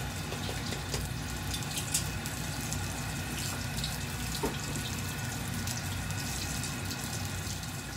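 Pork belly deep-frying in hot oil: a steady sizzle with fine crackles as the skin crisps.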